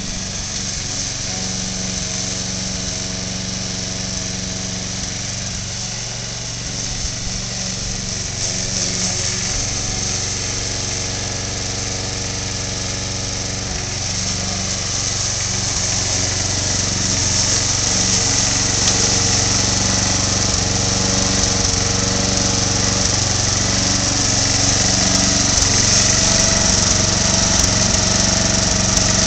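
Gasoline walk-behind rotary lawn mower engine running steadily under load while cutting grass. It grows louder over the second half as the mower comes closer.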